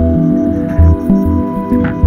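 Background music: held tones over a pulsing bass line.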